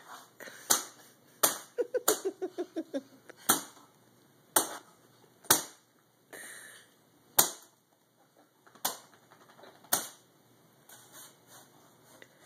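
Sharp knocks, about a dozen at uneven intervals, with a quick run of about eight short squeaks around two seconds in.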